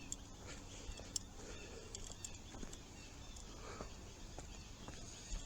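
Faint footsteps on a dirt woodland trail, a short crunch or click about once a second at a walking pace, over quiet outdoor background.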